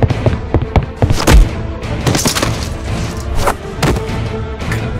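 Dramatic background music overlaid with a quick series of added fight sound effects: hits and thuds, the loudest a heavy low boom about a second and a half in.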